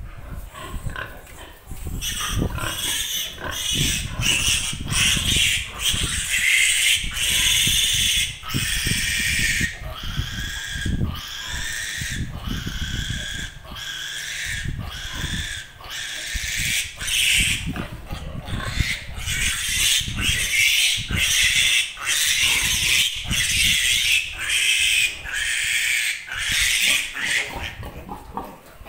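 Piglet squealing loudly and almost without pause while held for an iron injection: a distress squeal, broken by short gaps for breath about once a second. It starts about two seconds in and stops near the end.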